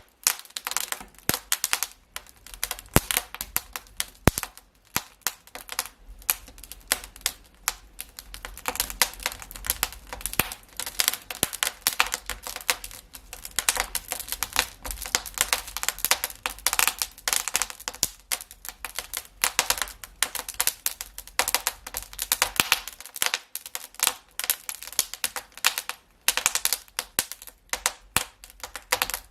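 Wood fire in a fireplace crackling, with a dense, irregular stream of snaps and pops.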